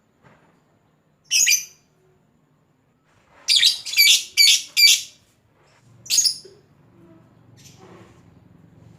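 Lovebird giving loud, shrill chirping calls: one about a second and a half in, a quick run of four a couple of seconds later, then one more.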